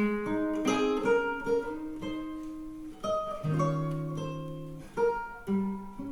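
Acoustic guitar intro, a run of plucked notes that ring and die away, played back through a home-built speaker with an Alpair7 V2 10 cm full-range driver.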